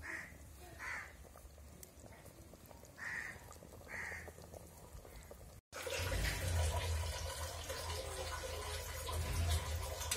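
Four short calls, one right at the start and the others about one, three and four seconds in, over a faint low hum. After an abrupt cut just past halfway, a louder steady rushing noise with a low hum takes over.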